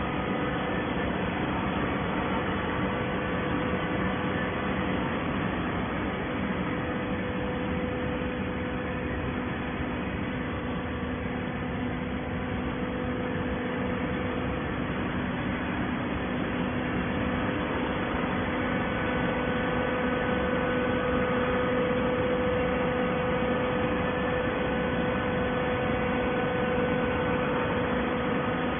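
Steady drone of running industrial machinery: a constant hum with several steady tones over a noisy bed, growing a little louder past the middle.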